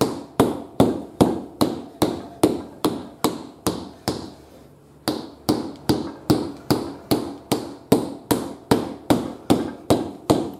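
A small rubber hammer striking a motorcycle tyre's sidewall in a steady run of dull knocks, about two and a half a second, with a short pause about four seconds in: hammering the bead loose from the rim of an Africa Twin's rear wheel.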